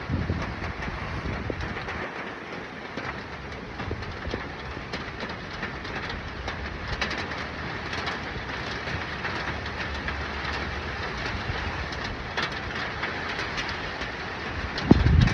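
Steady rain falling, a continuous hiss dotted with the clicks of individual drops striking. A low rumbling bump comes at the start and again just before the end.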